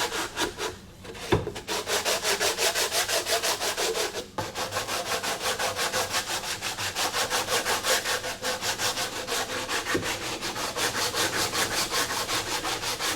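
Rapid back-and-forth scraping strokes of hand abrasive work on a part, about five strokes a second, taking down rough ruts. The stroking breaks off briefly twice, and there is a single knock about a second in.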